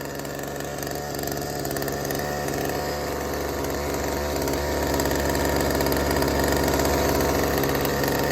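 McCulloch two-stroke chainsaw engine running steadily, growing louder over the first five seconds or so.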